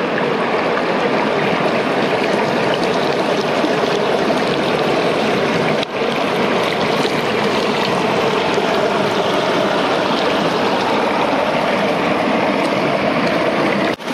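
Rushing water from a waterfall: a loud, steady rush with a brief dip about six seconds in.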